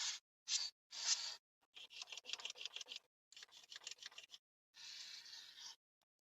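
A run of short hand scrubbing strokes, rubbing on a surface while cleaning with solvent: about half a dozen separate strokes, a longer scratchy one near the middle, then they stop near the end.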